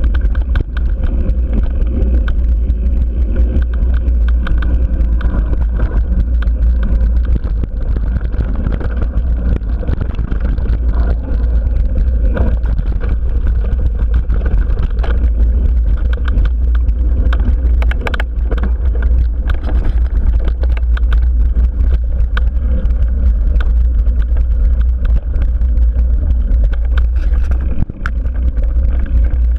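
Wind buffeting an action camera's microphone on a mountain bike riding a dirt singletrack: a heavy, steady rumble, with the bike rattling and knocking over bumps and roots throughout.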